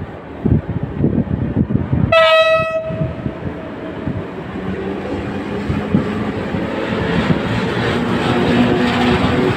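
Wind buffeting the microphone, then about two seconds in a short horn blast from an EU07 electric locomotive. The locomotive then pulls its train away, its traction motors humming and its wheels rolling over the rails louder and louder as it comes closer.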